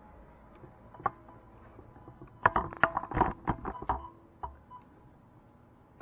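A wooden interior door being handled: a loud cluster of clicks and knocks lasting about a second and a half, with a single click before it and another after.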